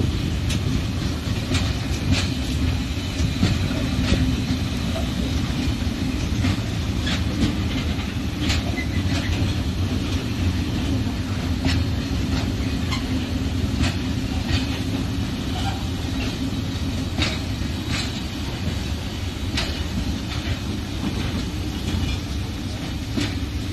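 Freight train's covered boxcars rolling past close by: a steady rumble of wheels on rails, broken by irregular clicks from the wheels every second or so.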